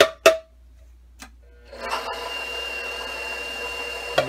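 Two sharp metallic clicks with a short ring as the stand mixer's stainless steel bowl is handled. About two seconds in, a KitchenAid stand mixer's motor starts and runs steadily with a constant high whine, its flat beater mixing flour and water into a poolish.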